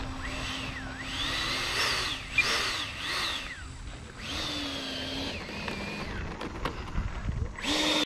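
E-flite F-16's 70 mm electric ducted fan whining as the jet taxis, rising and falling in pitch several times with bursts of throttle. There are a few clicks near the end.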